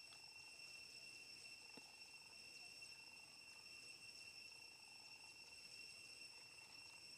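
Near silence with a faint, steady, high-pitched insect drone, and a softer lower buzz that comes and goes.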